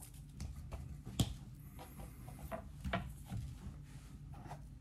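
Faint pats, rubs and small knocks of hands pressing salt and pepper onto a raw rib roast on a cutting board, with a sharper knock about a second in and another near three seconds.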